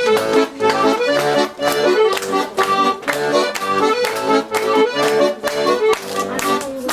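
Accordion playing a traditional dance tune, with held melody notes over chords pulsing to a steady beat.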